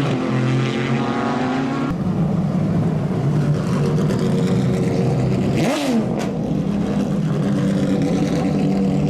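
GT race car engines running hard. The sound changes abruptly about two seconds in, and a little past the middle the pitch drops sharply and climbs again.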